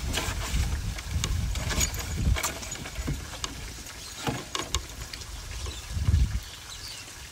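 Irregular clicks, scuffs and low thumps of a Thai ridgeback puppy scrabbling on a bamboo-slat floor while it is grabbed and handled. There is a burst of low thumping about six seconds in.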